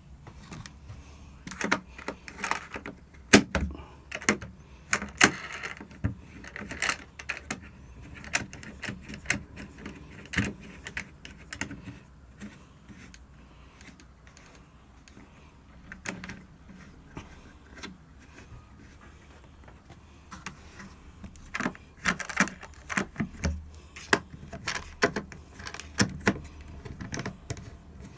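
Clicks and knocks of an opening portlight's plastic star-knob latches being turned and its frame handled, in two busy spells with a quieter stretch in the middle.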